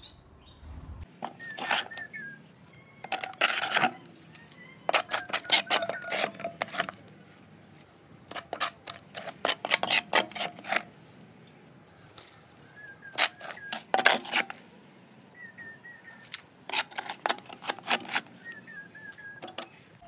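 Wood ash with bits of charcoal being scooped and scraped up by hand, in about six bursts of scraping and light clinking. Faint short bird chirps come between the bursts.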